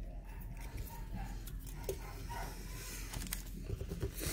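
Dogs barking faintly from upstairs, heard as a few short pitched calls in the first half. Light clicks from trading cards and plastic card holders being handled on the table.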